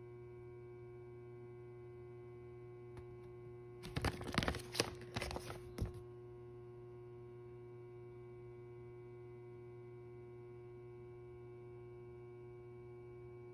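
Paper leaflet rustling and crinkling as it is handled and turned over, for about two seconds starting about four seconds in, over a steady electrical hum.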